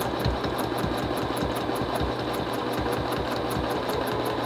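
Juki 2010 sewing machine stitching steadily with a ruler foot, a fast even run of needle ticks, about six or seven a second, over the motor's hum.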